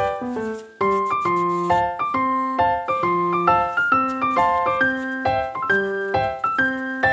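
Instrumental music: a run of separate notes, several a second, each starting sharply and dying away.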